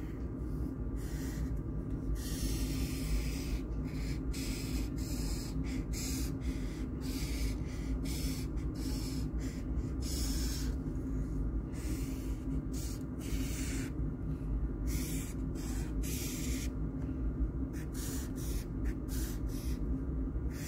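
A large chisel-tip Sharpie permanent marker drawn across sketchbook paper in a run of short and long strokes, each a dry, high scratching, with brief pauses between. A steady low hum lies underneath.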